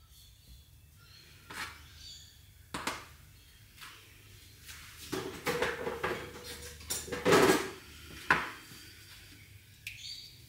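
Knocks and clinks of kitchenware handled on a stainless steel bench: plastic measuring jugs, a small glass and a silicone spatula being set down and picked up. A few single knocks, then a busier run of clatter between about five and eight seconds in, loudest around seven seconds.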